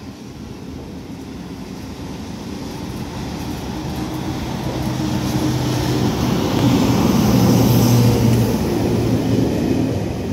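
Locomotive-hauled SNCF passenger train running through the station at speed without stopping. Its rumble builds steadily as it comes in and is loudest about seven to eight seconds in, with a low hum as the locomotive passes, then the coaches roll by on the rails.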